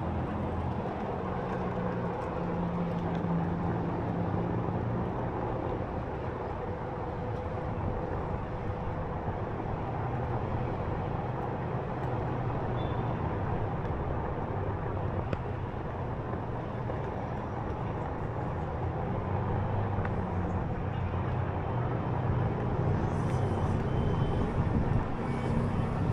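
Steady city street traffic noise: vehicles running by, with a low engine hum, rising slightly near the end.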